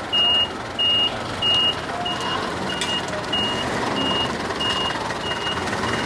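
Vehicle reversing alarm beeping: one high tone repeating about one and a half times a second, the first three beeps loudest and longest, the rest shorter and fainter, over steady background noise.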